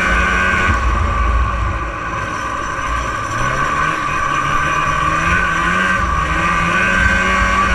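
1989 Arctic Cat Jag 440 snowmobile's fan-cooled two-stroke engine running while riding. The engine eases off about a second in, dropping in pitch, then climbs back up over the next few seconds, over a low rumble.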